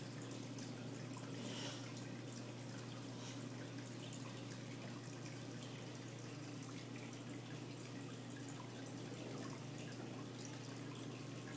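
Saltwater aquarium's filter and pump running: water trickling and dripping over a low steady hum.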